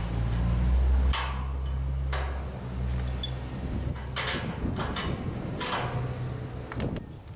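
Scattered metal clicks and scrapes as a worn sliding-gate wheel and its axle bolt are worked loose by hand from the gate's bracket. Under them runs a low steady hum, loudest in the first second, that fades out near the end.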